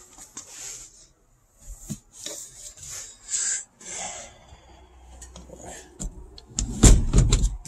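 Irregular rubbing and rustling against cloth seat upholstery, with a louder muffled bump-and-rub burst near the end.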